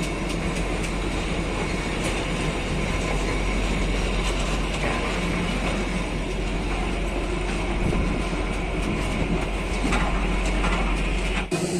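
Kalka–Shimla narrow-gauge train running, heard from on board: a steady rumble with rapid clicking of the wheels over the rail joints. It cuts off abruptly just before the end.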